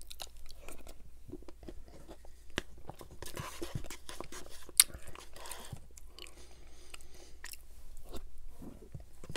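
Close-miked mouth sounds of eating McFlurry ice cream: soft chewing and smacking, with a plastic spoon scraping and clicking in the paper cup. One sharp click about five seconds in.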